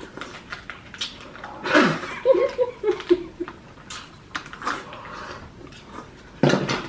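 Fast eating of canned pineapple tidbits: scattered wet chewing, mouth and smacking clicks. About two seconds in comes a short laugh, a run of quick syllables stepping down in pitch, and near the end a loud breathy burst.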